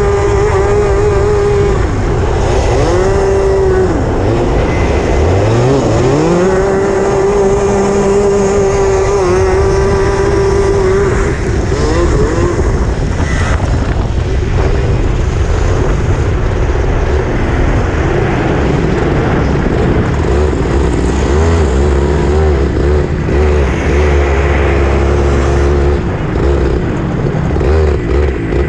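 Racing kart engine heard onboard, held at high revs with a couple of quick dips and climbs back as the throttle is lifted and reopened. After about eleven seconds the revs drop and run lower and uneven as the kart slows, with a low rumble for a few seconds near the end.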